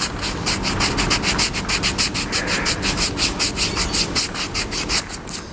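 Paintbrush bristles scrubbed rapidly back and forth over a freshly flocked dashboard, brushing off the loose excess flock fibres in fast, even scratchy strokes, several a second.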